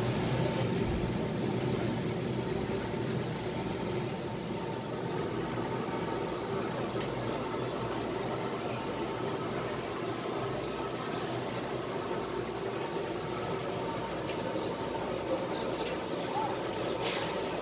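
Steady background hum and hiss of a seafood market, with a few short clicks near the end.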